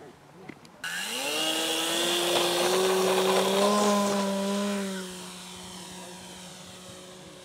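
Small electric RC model plane's motor and propeller whining up to full power about a second in, holding a steady pitch through the takeoff run, then quieter near the end as the plane climbs away.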